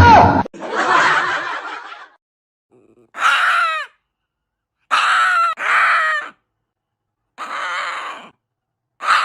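A series of about six short, high cries, each falling in pitch at the end, separated by abrupt silences. It opens with a loud, sudden noisy burst.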